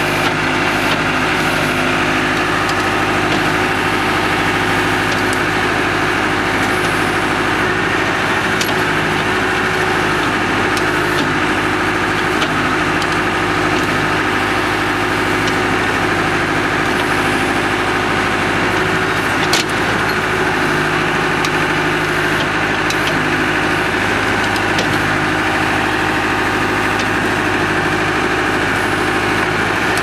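Escorts Powertrac 4455 tractor's diesel engine running steadily at an even speed, with one sharp click about twenty seconds in.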